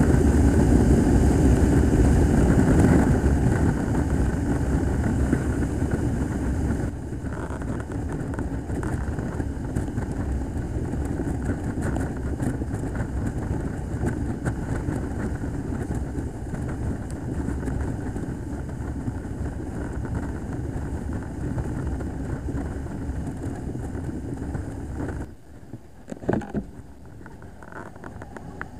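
Motorcycle engine and wind noise while riding. It drops in level about seven seconds in and again near the end.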